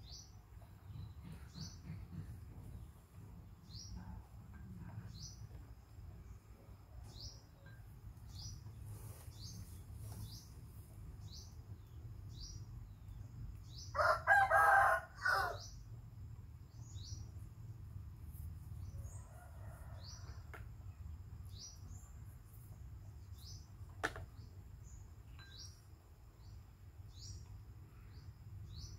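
A rooster crowing once, loud, about halfway through. Under it a small bird gives short, falling chirps about once every second or so, over a steady low hum.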